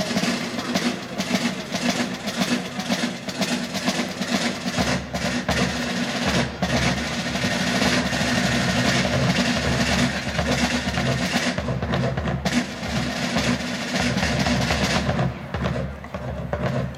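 Military band playing, with rapid drumming carrying the piece. A low rumble joins about five seconds in.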